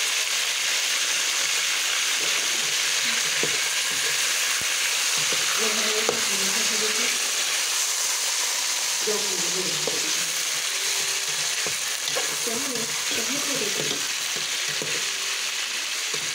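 Raw chicken pieces and garlic sizzling steadily in hot oil in a metal pot, stirred with a slotted metal spoon that scrapes and clicks against the pot now and then.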